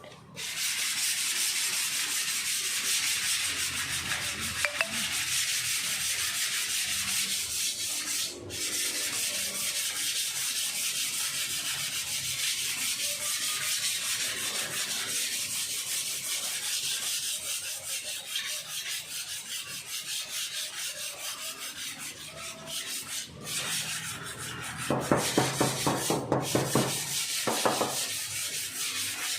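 Body filler on a car panel being sanded, a steady abrasive hiss with a few brief pauses and a run of louder, rhythmic strokes near the end.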